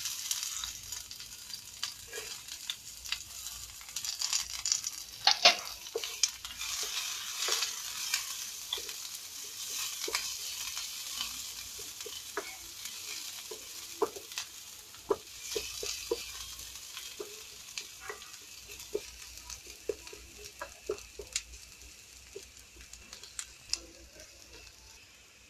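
Onion sizzling in hot oil in a frying pan, stirred with a spatula that clicks and scrapes against the pan; the sizzle starts suddenly and slowly dies down toward the end.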